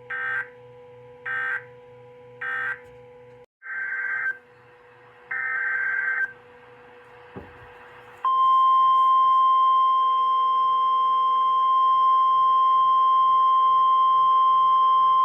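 Emergency Alert System data bursts on a NOAA Weather Radio broadcast: three short bursts about a second apart, typical of the end-of-message code, then two longer data bursts. About eight seconds in, the steady single-pitch NOAA Weather Radio 1050 Hz warning alarm tone starts and holds.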